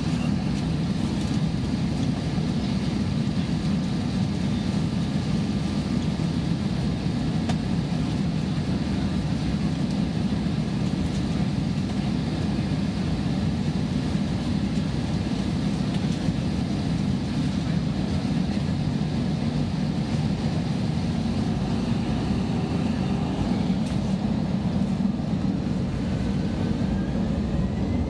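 Steady low rumble inside the cabin of an Airbus A320 taxiing, its jet engines running at low taxi power, with an even level throughout. A faint rising whine comes in near the end.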